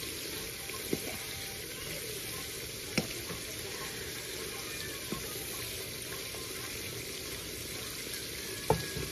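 Shrimp and langostinos in sauce sizzling in a frying pan as a wooden spoon stirs them, a steady hiss broken by a few light knocks of the spoon against the pan.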